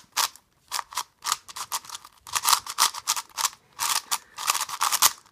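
Cong's Design Meiyu 4x4 speed cube being turned fast in the hands for its first turns out of the box: a rapid, uneven run of plastic clicking and scraping layer turns, with a short pause about a second and a half in. The new cube is factory-lubed and turns a little slow.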